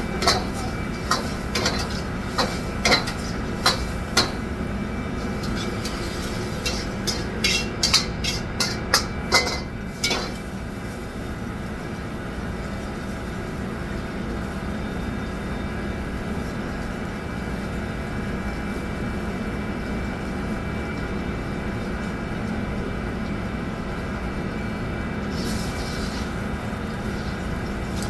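Kitchen utensils and metal cookware clinking and knocking in sharp, irregular strokes, quickening and then stopping about ten seconds in. A steady mechanical hum runs underneath.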